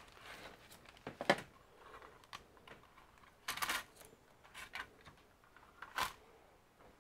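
Irregular light clicks and taps, a handful spread a second or so apart, over quiet room tone.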